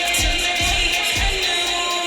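Electronic beat music from a live DJ/beat set, with a kick drum hitting about twice a second under sustained synth tones.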